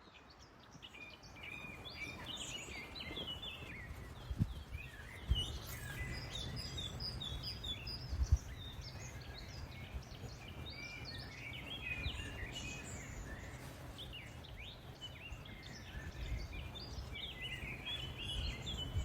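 Small songbirds chirping and singing, several calls overlapping, over a steady low rumble. A few sharp low thumps come in the first half. The sound fades in over the first two seconds.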